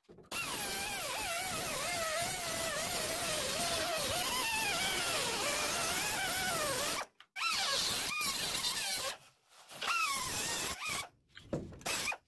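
Cut-off wheel slicing through the steel of an old quarter panel, a harsh whine whose pitch wavers as the wheel bites and slows. It stops briefly about seven seconds in and again around nine seconds, then comes back in short cuts near the end.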